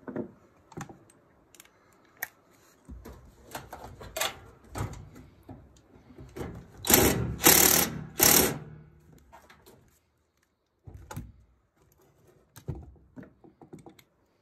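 Cordless Milwaukee driver run in three short bursts, about seven seconds in, against a screw that is tight and hard to move. Small clicks and taps of hand tools being handled come before and after.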